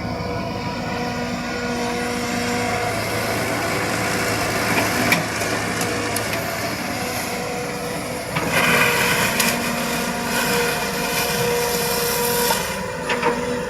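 Excavator engine running steadily under load, with a louder, harsher stretch about two-thirds of the way in and a few sharp metallic knocks.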